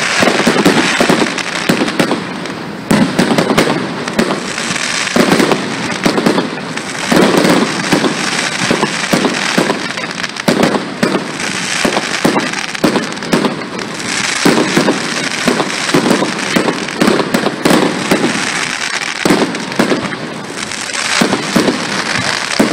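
Fireworks display: a dense, unbroken barrage of loud bangs from bursting shells, many overlapping one another.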